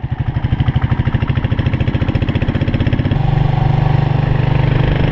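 Small motorcycle engine running while the bike rides along, with an even pulsing beat; about three seconds in the sound changes to a steadier drone.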